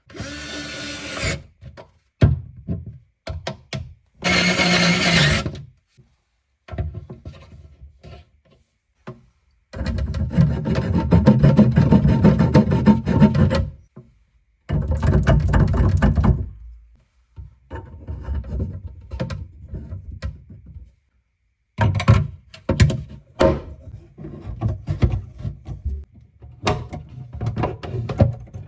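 Hand-tool work in short, abruptly cut bursts: rasping and scraping with knocks and clatter between them.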